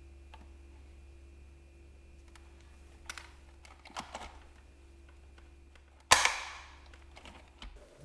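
Hard plastic parts of a Dyson DC24 cleaner head clicking as it is handled and pushed back onto the vacuum's neck. About six seconds in there is one loud, sharp snap as a part locks into place, with a short ringing tail.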